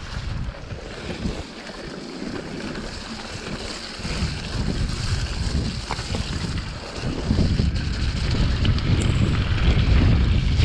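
Wind buffeting the camera's microphone and a mountain bike's tyres rumbling over a dirt trail on a fast descent. The rumble grows louder from about seven seconds in as speed builds.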